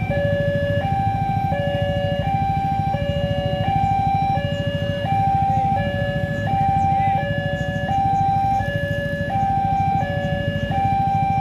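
Railway level-crossing warning alarm sounding a two-tone electronic signal, alternating high and low notes each held for a bit under a second, over a steady low rumble.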